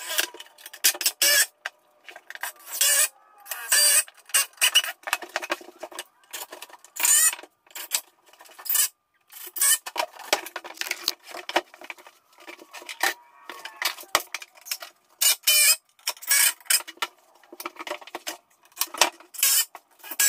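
Wooden 2x4 wall framing being handled and knocked about on a plank floor: short, irregular bursts of clattering and scraping, broken by sudden silences.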